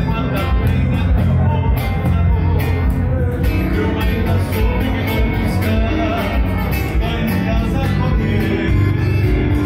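Live southern Brazilian gaúcho folk music: a man singing over an acoustic guitar, a piano accordion and an electric bass.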